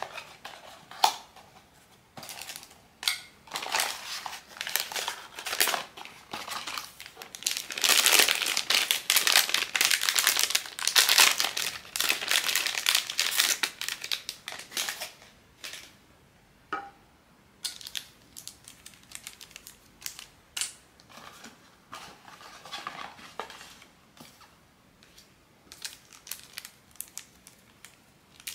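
Blind-box toy packaging handled and unwrapped by hand, crinkling and crackling. A dense stretch of crinkling in the middle is the loudest part, with scattered sharp clicks and short crackles before and after.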